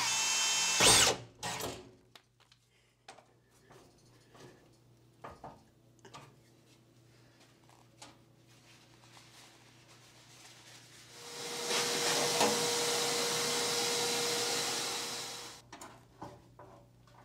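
Milwaukee M18 cordless drill driving a screw into the metal enclosure wall, running for about a second at the start, then a few light clicks of hand tools. About 11 seconds in, a second, longer run of about four seconds with a steady whine, cutting off near the end.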